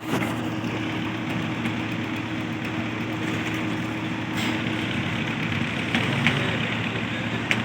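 Engine of the concrete-pouring machinery running steadily, with a few short sharp knocks in the second half.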